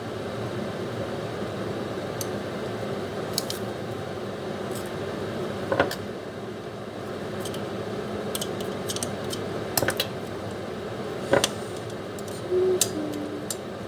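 Kitchen food-prep sounds: a few sharp clicks and taps of utensils against a bowl or board over a steady hiss.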